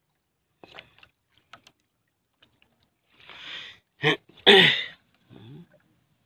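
A man's explosive bursts of breath and voice about four seconds in: a breath in, then a short sharp burst, then a louder one falling in pitch. Faint clicks come before.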